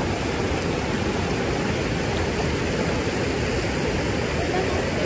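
Steady rush of a fast-flowing mountain creek over rocks.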